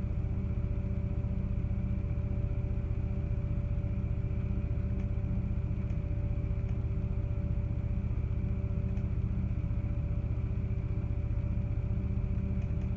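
Steady low machine hum with a few constant tones, unchanging throughout, and a few faint clicks here and there.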